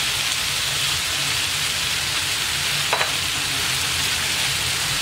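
Diced chicken, potato, peas and mushrooms sizzling steadily in a nonstick frying pan while being stirred with a wooden spatula, with a single short knock about three seconds in.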